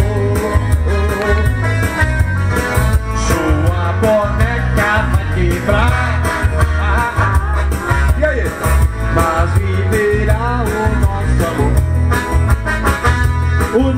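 Live music from an electronic keyboard over loudspeakers, with a steady bass beat and a gliding melody line.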